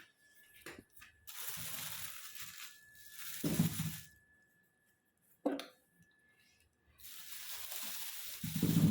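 Hiccups: about three short, sudden low "hic" sounds, two of them after a second or so of hissing, breathy noise.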